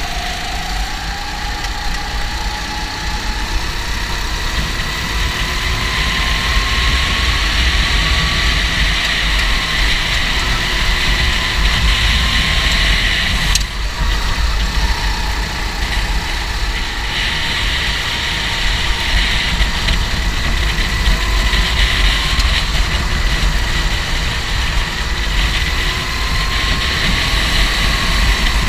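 Racing kart engines running in a continuous drone whose pitch drifts gently up and down, with one sharp click about 14 seconds in.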